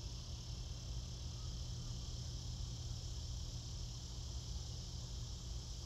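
Steady insect chorus, a continuous high buzzing trill, over a low steady hum.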